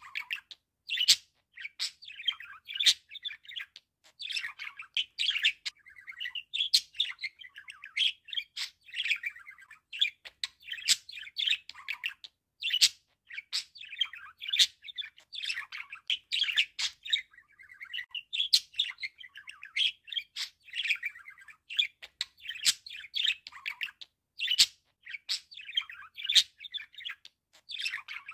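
A budgerigar chattering and warbling nonstop: a fast, uneven stream of short chirps mixed with sharp clicks, with only brief pauses.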